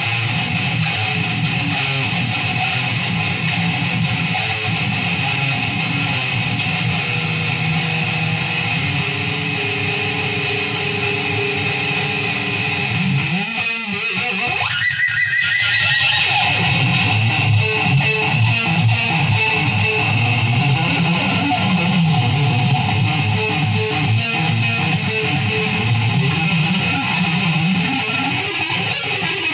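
Guitar music: a guitar strummed and played continuously, with a short break and a rising sweep about halfway through.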